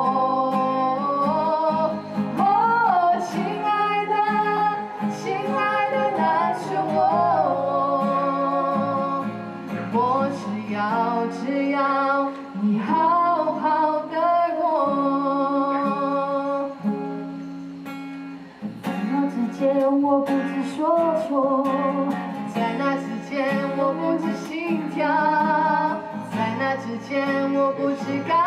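A woman singing a slow melody over acoustic guitar accompaniment. The music thins out briefly about two thirds of the way through, then picks up again.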